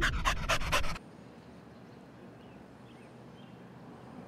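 A dog panting hard right at the microphone, about four breaths a second, cut off suddenly about a second in. Then quiet outdoor background with a few faint, high chirps.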